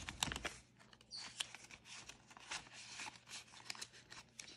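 Paper banknotes and plastic cash-binder envelopes rustling and crinkling as they are handled, with many small clicks and taps.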